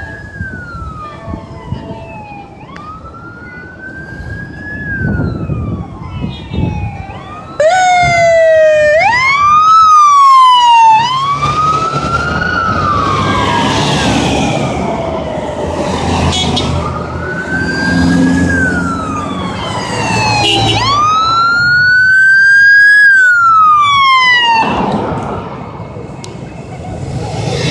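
Wailing sirens of a motorcade's police escort passing, each rising and then sliding down every two to three seconds. A louder, closer siren cuts in about a quarter of the way through, and several sirens then overlap over the engine and tyre noise of passing vehicles.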